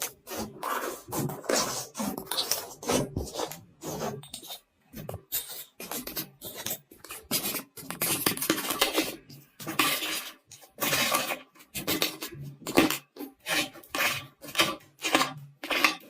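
Slime being squeezed and pressed by hand: an irregular run of short, crisp squishes and clicks, several a second with brief pauses.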